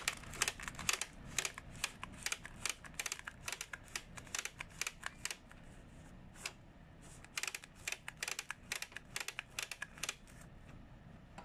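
Quick plastic clicking from a Zebra ZD220t thermal transfer printer's ribbon spindle as the ribbon roll is turned by hand to wind the ribbon in. The clicks come several a second, stop briefly a little past halfway, then go on and thin out near the end.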